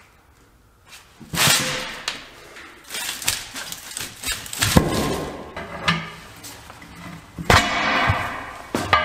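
A heavy truck tire being fitted by hand onto a steel wheel rim: several dull thuds and rubbery scrubbing as the tire is dropped onto the rim and shoved down, and sharp knocks as a steel tire iron works the bead over the rim flange.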